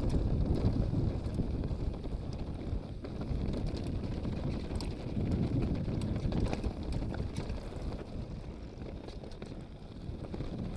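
Wind buffeting the microphone over the rumble and rattle of a downhill mountain bike rolling fast over loose slate and gravel, with scattered sharp clicks and ticks from stones and the bike's frame and chain.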